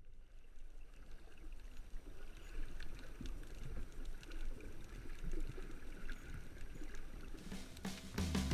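Underwater sound through a GoPro Hero3+ in its waterproof housing as it moves through shallow water: a low, muffled water rumble with faint scattered clicks and crackles.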